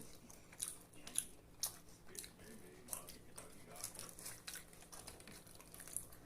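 Close-up eating sounds: chewing and biting with wet mouth smacks and clicks, coming irregularly about every half second.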